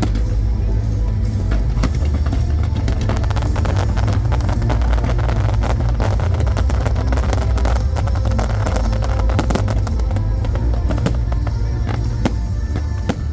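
Fireworks crackling and popping in rapid volleys, thickest in the middle and thinning toward the end, over loud music with a deep bass.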